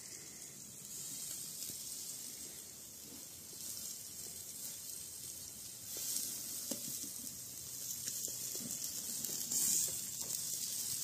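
Sausages and a green pepper sizzling on the grate of a charcoal kettle grill: a steady high hiss with faint scattered crackles.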